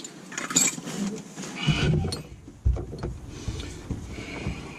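Small parts being handled by hand: a run of clicks and knocks, with low rumbling bumps from about a second and a half in and one sharp knock just before the middle.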